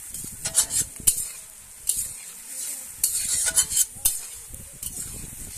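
Sliced onions sizzling in hot oil in a wok, stirred with a spatula that scrapes and clicks against the pan. The sizzle swells and fades with each stir, and there are sharp clinks about a second in and again around four seconds.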